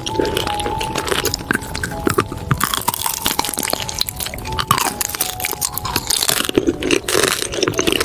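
Food being crunched and chewed, in repeated crackly bursts.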